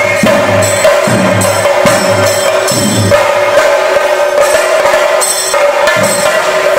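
Several chenda drums, the cylindrical Kerala temple drums, beaten with sticks in a loud, fast, continuous rhythm, with deeper strokes falling every second or so.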